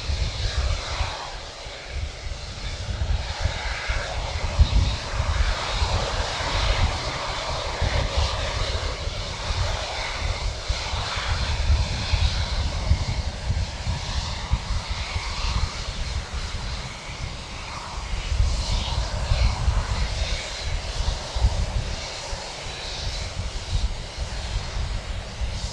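Boeing 747-8F freighter's four GEnx jet engines running at taxi power as it rolls past: a continuous jet rush over an uneven, gusty low rumble.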